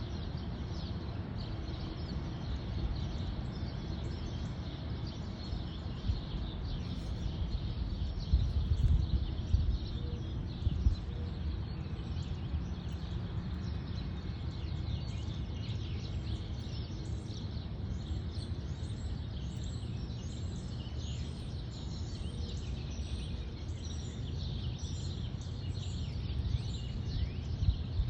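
A low, steady rumble from the sky, of unknown source, which the recordist first took for a train; it swells briefly about eight to eleven seconds in. Birds chirp over it.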